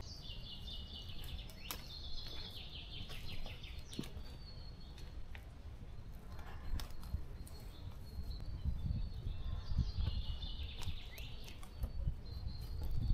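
A small songbird singing in two bouts, one at the start and one near the end, over a low, uneven rumble.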